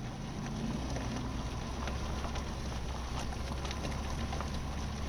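Steady low drone of a pickup truck driving, heard from inside the cab: engine and road noise with a few faint ticks and rattles.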